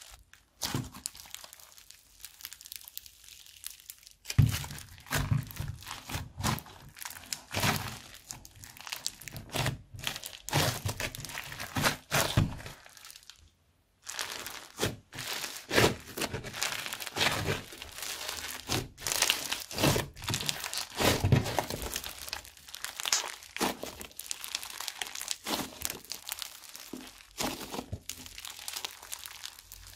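Fluffy slime loaded with foam beads being stretched, squeezed and poked by hand, giving an irregular run of crackles, clicks and small pops, with an occasional dull thud.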